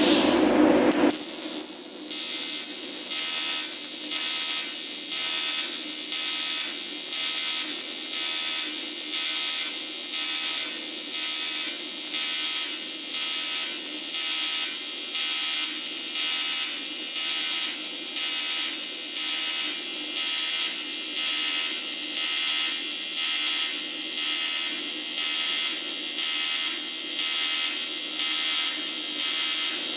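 TIG welding arc running a bead on cast aluminium: a steady high-pitched buzz with a regular pulse. It strikes about a second in.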